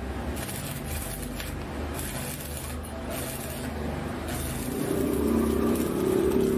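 Stick arc welding on steel: the electrode's arc crackling and buzzing over a steady low hum, getting louder about five seconds in as the arc runs hot and throws sparks.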